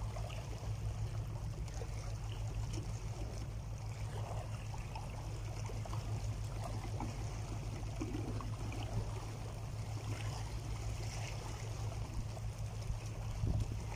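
Small sea waves lapping and washing among shore rocks, with scattered small splashes over a steady low rumble.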